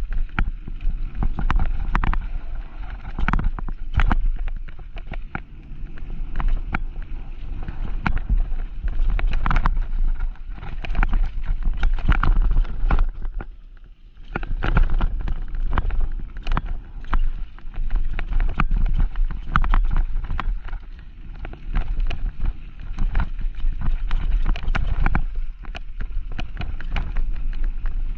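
Mountain bike ridden down a rough bike-park trail: a dense, irregular clatter of knocks and rattles from the bike over rough ground, with wind rumbling on the microphone.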